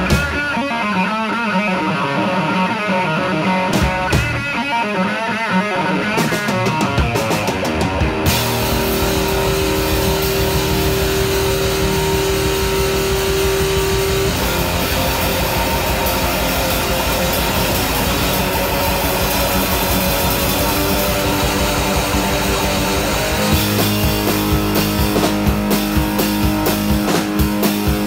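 Rock music led by electric guitar: the guitar plays alone with bending, wavering notes, then drums and the rest of the band come in about eight seconds in, and the rhythm tightens into a steady pulse near the end.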